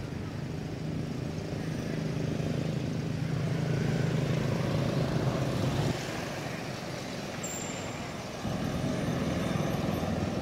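Motorbike engines passing on the road, a steady low drone that grows louder over the first six seconds and then breaks off suddenly. The drone returns abruptly about eight and a half seconds in.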